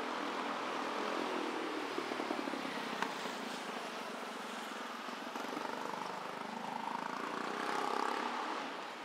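City street traffic noise: a steady wash of vehicles running past, swelling as one comes closer and passes about eight seconds in.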